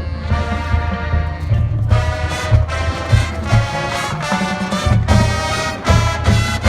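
High school marching band playing, the brass holding loud chords that change every second or so over a pulsing bass.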